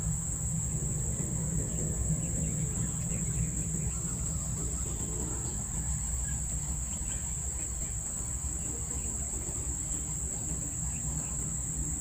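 A steady, unbroken high-pitched insect chorus, typical of crickets, over a constant low rumble.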